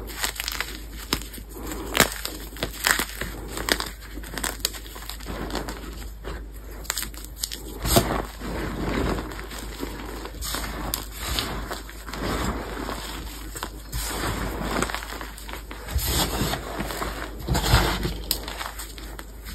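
Pasted gym chalk blocks crunching and crumbling in the hands, with many sharp crackly snaps, turning partway through to softer, powdery rustling as fingers dig through loose chalk powder.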